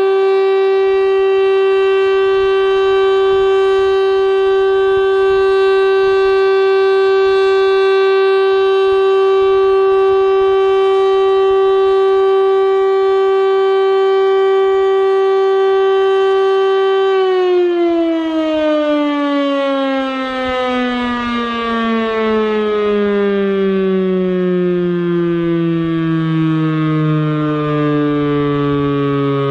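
Federal Signal STL-10A electromechanical tornado siren (10 HP motor) sounding a steady, loud single-tone Alert. About 17 seconds in, power is cut at the end of its 3-minute test cycle and the pitch starts a long, slow slide downward as the rotor coasts down, still sounding at the end.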